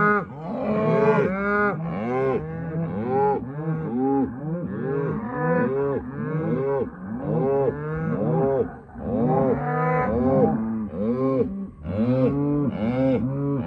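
Cattle mooing and bawling continuously, many overlapping calls one after another with no pause.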